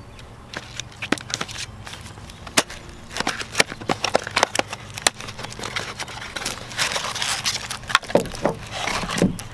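Cardboard box and plastic wrap being handled as a boxed LED third brake light is unpacked: irregular sharp clicks and taps of the cardboard, with crinkling rustles that thicken near the end as the light is slid out.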